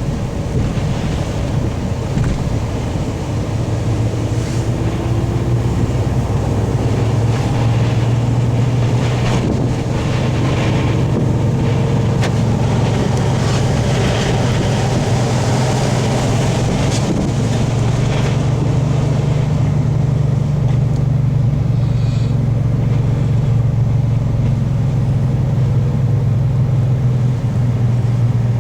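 High wind blowing hard over a steady low drone, with brief gusts flaring up now and then.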